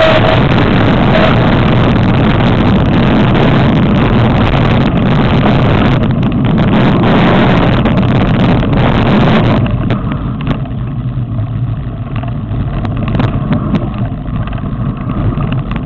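Wind rushing over the camera's microphone while riding a mountain bike fast down a loose gravel track, with scattered clicks and rattles from the bike running over stones. The rushing drops off suddenly about ten seconds in, leaving quieter noise with faint ticks.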